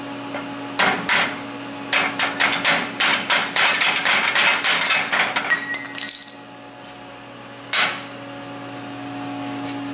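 Cut-out pieces being knocked free of a freshly plasma-cut steel plate: a rapid series of sharp metal knocks and clanks, then a ringing clang about halfway through as a piece comes loose, and one more knock later.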